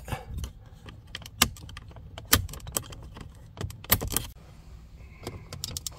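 Small screwdriver prying at the plastic retaining clips inside a Lexus IS250 dashboard center vent: a string of sharp, irregular clicks and taps of metal on plastic as the clips are worked loose.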